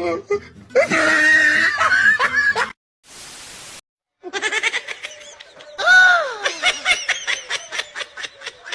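People shrieking and laughing, with one loud falling cry about six seconds in and quick rhythmic bursts of laughter after it. A short flat hiss about three seconds in is followed by a moment of silence.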